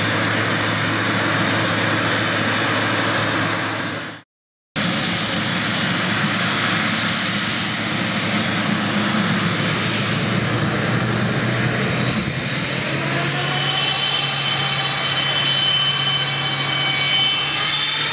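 Boeing 777-300ER's GE90 turbofan engines running as the airliner rolls slowly, a steady jet rush over a low hum. From about two-thirds of the way in, a whine rises in pitch as the engines spool up for the departure. The sound cuts out completely for about half a second around four seconds in.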